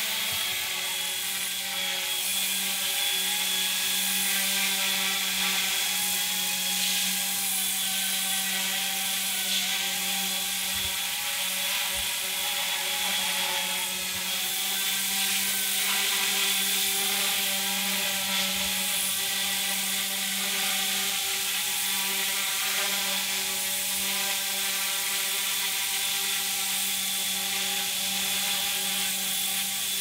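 Small scale RC helicopter in flight, hovering with a steady rotor buzz and a high motor whine.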